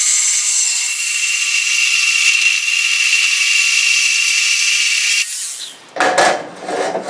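Hand-held corded power tool cutting a thin metal trim strip from a door threshold seal kit, a steady high-pitched grinding whine that cuts off about five seconds in. A few clattering knocks follow near the end.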